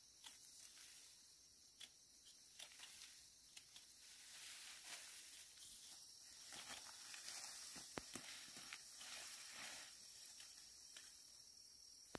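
Faint rustling and small snaps of upland rice stalks and panicles being handled and picked by hand. A steady high insect note comes in about halfway through.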